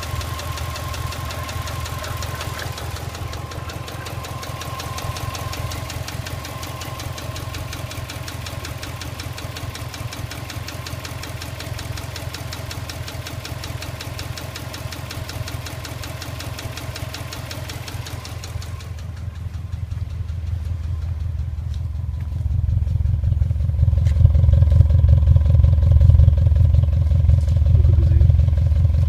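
Subaru EJ206 flat-four engine running with a rapid, steady knock. About two-thirds of the way through the sound turns duller and the low running grows louder.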